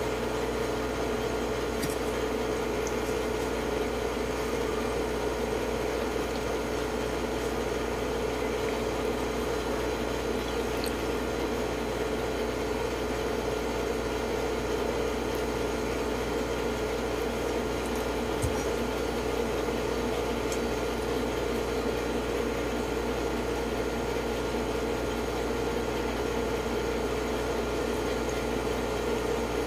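A steady machine hum with hiss, holding one even tone. A few faint clicks and a soft thump come through as the plastic figures are handled.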